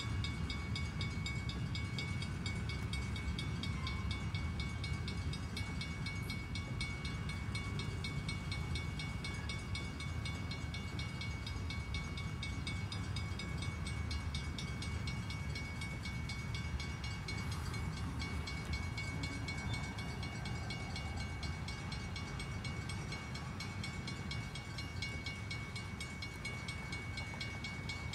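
Freight train cars rolling past in a steady low rumble, with a steady high ringing tone over it.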